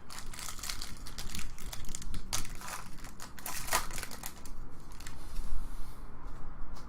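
Trading card packs being handled and opened: crinkling and crackling of the foil wrappers with rustling and snapping of cards, busiest for the first four seconds or so, then quieter handling with a few light clicks.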